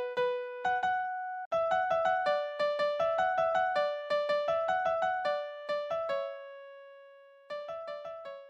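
Background music: a light melody of single electric-piano notes, breaking off about a second and a half in, with one long note left to fade before the melody picks up again near the end.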